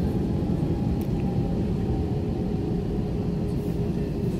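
Airbus A321 cabin noise while taxiing: a steady low rumble from the engines and the rolling airframe, heard from inside the cabin, with a faint steady hum.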